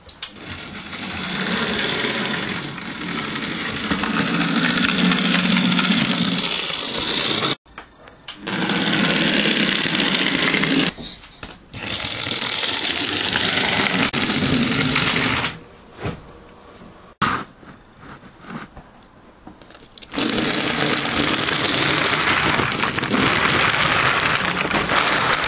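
Model J50 tank locomotive running on a model railway: the small electric motor buzzes and the wheels clatter on the track. The sound cuts off abruptly several times, with a quieter stretch in the middle.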